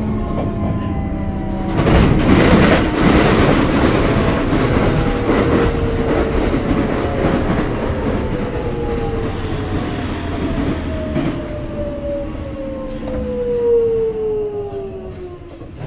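Sotetsu 8000 series electric train's Hitachi GTO-VVVF inverter whine falling steadily in pitch as the train slows, over rumbling wheel-and-rail noise that swells about two seconds in and then fades, with a single knock near the end.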